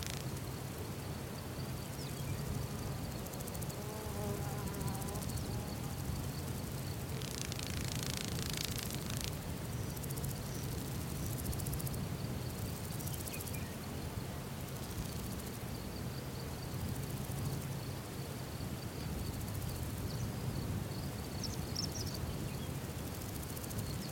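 An insect trilling steadily at a high pitch over a low, steady rumble, with a brief rushing swish about eight seconds in.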